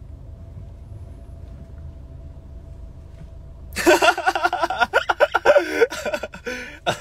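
A man laughing loudly, a hearty run of laughter that starts about four seconds in and lasts about three seconds, over the steady low rumble of a car cabin.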